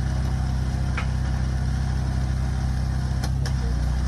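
Off-road vehicle engine idling steadily, with a few brief high clicks about a second in and near the end.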